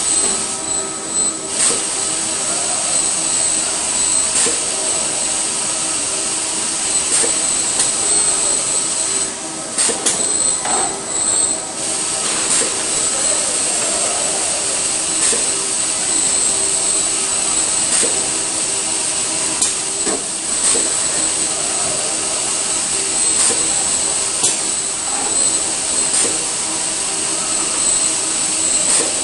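Machinery noise of a robotic roller-hemming cell in a car body shop: a steady high hiss over several steady hums, with scattered sharp clicks from the robots and clamping fixtures. The hiss drops away briefly about ten seconds in.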